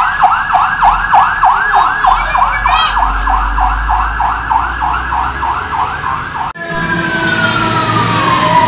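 Fire truck siren on a fast yelp, sweeping up and down about three times a second over a low engine rumble. A little over six seconds in it cuts to a slow wail that falls steadily in pitch.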